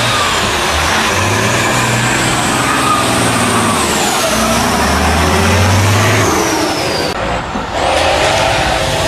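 Tatra trial truck's diesel engine revving hard under load on a steep climb, its pitch rising and falling, with a high whine that glides up and then down. The sound drops briefly about seven seconds in, then the engine noise picks up again.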